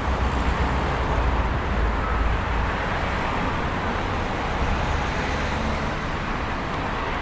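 Busy city street traffic: a steady wash of car and heavier vehicle engines and tyre noise, with a strong low rumble.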